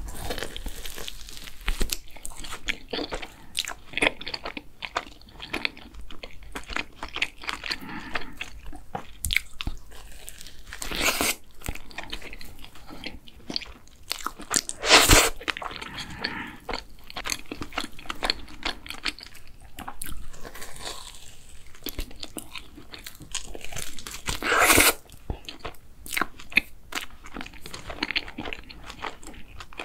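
Close-miked ASMR eating sounds: bites into and chewing of an Earl Grey cream-filled doughnut, with a few louder moments among the steady chewing.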